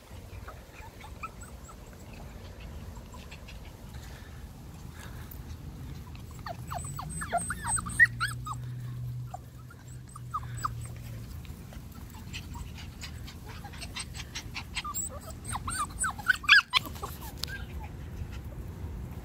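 Cockapoo puppies yipping and whimpering in short, high calls that rise and fall in pitch, in two flurries, one a few seconds in and another near the end.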